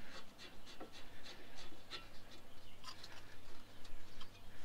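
Faint, irregular clicks and light scrapes of steel parts being handled as the brake caliper bracket is held on the rotor and its bolts are started by hand, over a low steady hum.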